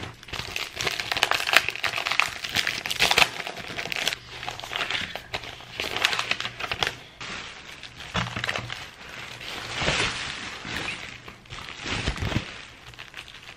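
Plastic mailer bags crinkling and rustling as they are handled and pulled apart, with irregular crackles.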